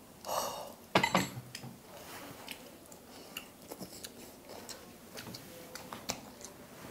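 Eating sounds of grilled tiger prawns being handled and chewed: a brief rustle near the start, a sharp knock about a second in, then soft small clicks and chewing.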